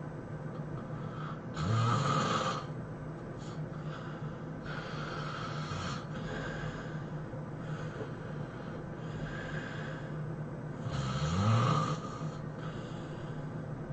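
A person snoring heavily: two long, loud snores about nine seconds apart, each rising in pitch, with softer breathing in between.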